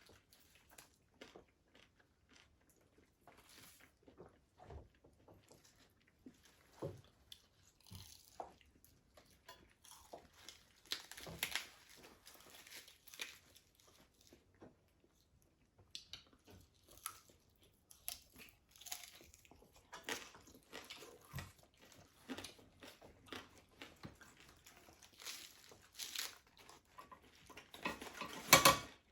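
People biting and chewing crispy fried food, egg rolls and pork belly: irregular crunches and wet chewing, with the loudest cluster of crunches near the end.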